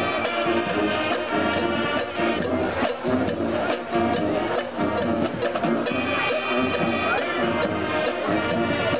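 High school marching band playing: sustained brass chords over regular drum strokes.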